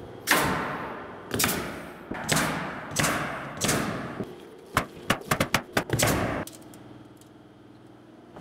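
Framing nailer driving nails through OSB subfloor sheets into the floor joists: about five loud shots roughly a second apart, each ringing out in the large open building. These are followed by a quick run of sharper, shorter clicks about five seconds in.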